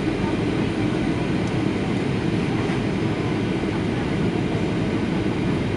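Steady, low drone inside the cabin of a Boeing 737-800 on its descent: the CFM56-7B engines and the airflow over the fuselage.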